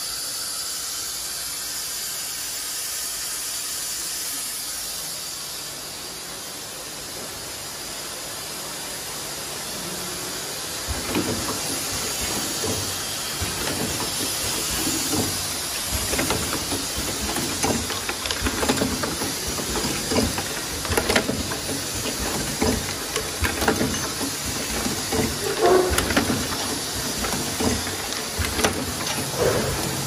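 Pneumatic perfume filling and crimping machine: a steady hiss of compressed air, with irregular clicks and knocks from the machine's heads and the vials on its table starting about eleven seconds in.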